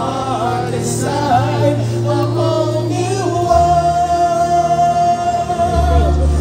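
Show soundtrack music with singing over sustained bass notes; near the middle a voice holds one long note.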